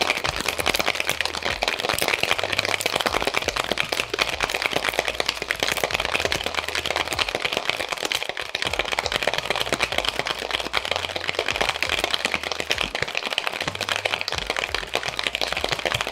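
Metal cocktail shaker being shaken hard and fast: ice clattering inside it in a dense, unbroken rattle.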